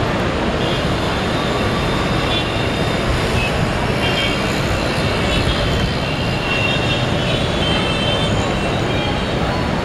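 Chennai Metro train running along the track, heard from on board: a steady rumble and rush of wheels and air, with faint high tones that come and go.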